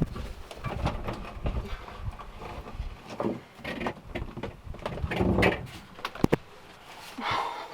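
Irregular knocks, clunks and scrapes of hands-on work on boat parts, with a sharp knock about six seconds in.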